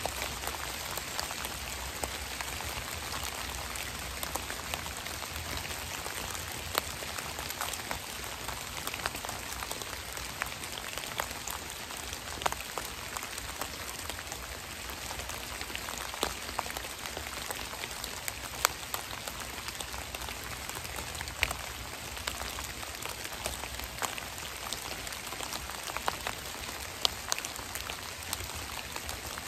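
Rain falling on leaf litter and dripping from trees: a steady hiss with scattered sharp taps of single drops.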